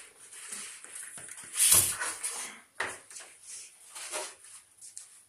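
Cardboard box and packaging of a flat-screen TV being handled and opened: irregular rustling and scraping, loudest about two seconds in, with a few shorter scrapes after.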